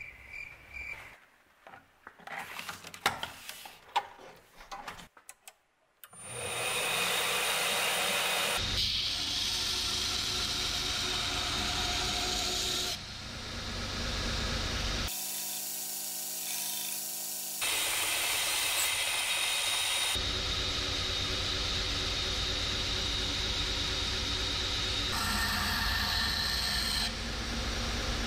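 A few scattered knocks, then a 2x72 belt grinder with a 50-grit ceramic belt starts up about six seconds in and runs steadily while a knife blade of AEBL steel is ground against the belt to rough out its bevels. The grinding noise changes abruptly in level and pitch several times.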